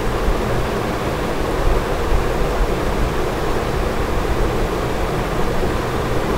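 Steady, even rushing background noise with a low hum and no distinct events: the narration microphone's hiss and room noise.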